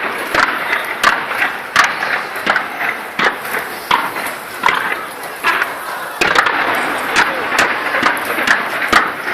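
Fireworks bursting in a rapid, irregular run of sharp bangs, several a second, over the steady chatter of a large crowd.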